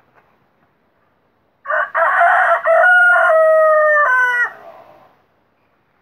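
Desi rooster crowing once: one loud call of about three seconds that ends in a short falling note.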